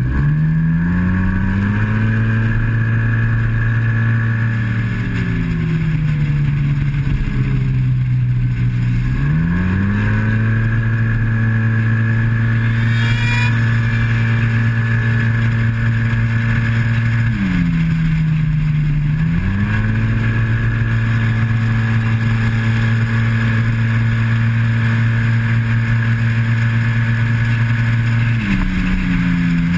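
Yamaha TMAX maxi-scooter's parallel-twin engine at full throttle, heard onboard with wind rush: the automatic CVT holds it at one steady high pitch for long stretches. Three times the pitch falls away and climbs back as the throttle is rolled off and on again for corners, the last near the end.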